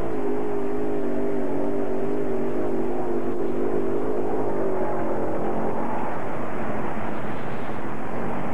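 Multi-engine modified pulling tractor with several supercharged Chevrolet V8s running flat out under the load of the weight-transfer sled. It makes a steady, slightly wavering drone that turns rougher and less even about six seconds in, near the end of a full pull of just over 300 feet.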